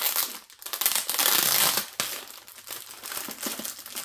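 Plastic packets of diamond-painting drills crinkling and rustling as they are handled, loudest for about a second near the middle, then lighter rustling.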